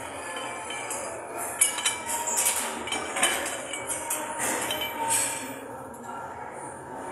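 Metal gym weights clinking and clanking: several sharp metallic strikes with ringing, the loudest about one and a half seconds in.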